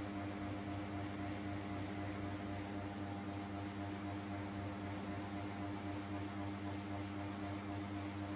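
Steady machine hum holding a few fixed pitches over an even hiss.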